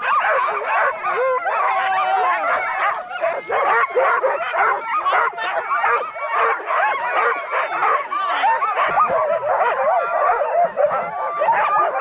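Many sled dogs yipping, howling and whining all at once in a continuous, overlapping din: the eager clamour of a sled team being harnessed for a run.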